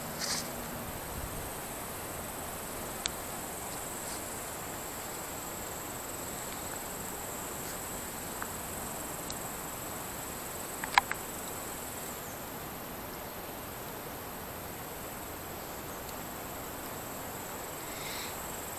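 Steady high-pitched chirring of insects such as crickets, at dusk by a forest lake. A few short sharp clicks sound through it, the loudest about 11 seconds in.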